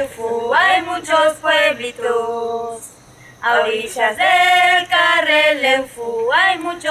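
A group of people singing a chant without instruments, in held, gliding sung phrases with a short break about three seconds in.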